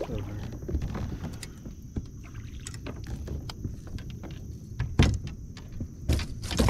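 Knocks and clatter of a landing net and gear bumping against a kayak as a netted bass is lifted aboard, with louder thumps about five seconds in and again near the end.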